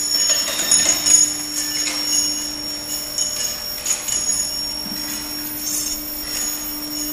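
Chain conveyor of an induction annealing line running, with metal workpieces clinking irregularly as they are loaded, loudest about a second in. Under it run a steady low hum and a steady high-pitched whine.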